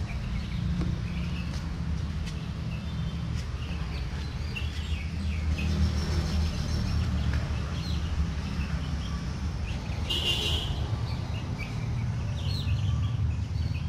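Birds chirping here and there over a steady low rumble, with one brief, louder high call about ten seconds in.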